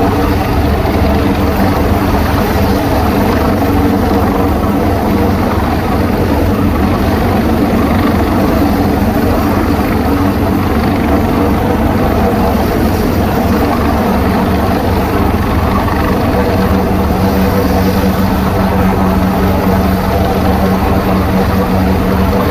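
AgustaWestland AW189 coastguard helicopter hovering with a winch load on its cable: loud, steady rotor and turbine noise, with a hum that grows stronger in the second half.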